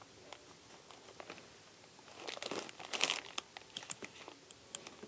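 Grafting knife cutting into the bark of a fig sucker: faint scraping and crackling with scattered small clicks, louder for about a second in the middle.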